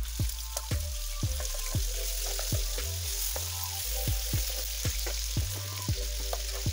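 Hot oil sizzling in a frying pan as raw chicken pieces are laid in to shallow-fry. Background music with a steady beat of about two thumps a second.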